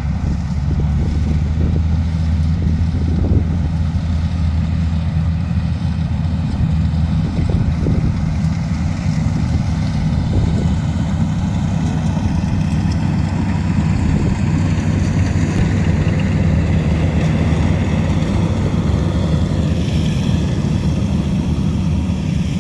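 Engine running steadily at an even speed, with a fainter higher whine that drifts in pitch in the second half.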